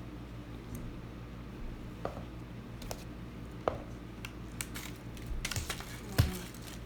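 Scattered small clicks and crinkles from handling cotton candy and its packaging, with a louder knock about six seconds in.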